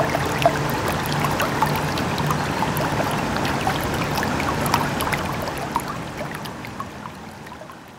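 Stream water running and trickling over rocks, with many small splashes and drips, fading out over the last couple of seconds.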